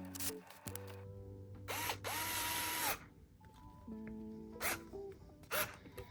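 Electric screwdriver whirring in short bursts, each spinning up and winding down: one burst of about a second about two seconds in, then two brief ones near the end, over background music.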